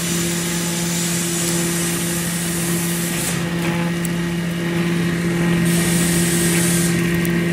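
Limestone grinder mill running steadily: a constant motor hum with a grinding hiss over it. The higher part of the hiss drops away for a couple of seconds midway and then comes back.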